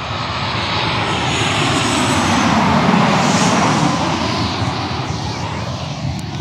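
Jet airliner passing low overhead: a loud rumble and roar that swells to its loudest about three seconds in, its pitch falling as it goes by, then begins to ease off.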